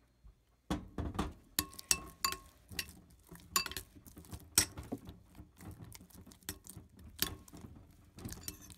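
Fingers kneading sticky glue-and-laundry-detergent slime in a plastic bowl: an irregular run of wet squelches and sharp little clicks, starting just under a second in.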